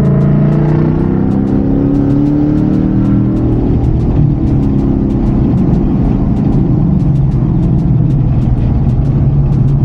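Ford Mustang GT's 5.0-litre V8 running under way, heard from inside the cabin. Its pitch rises over the first three seconds as the car speeds up, then holds steady at a cruise.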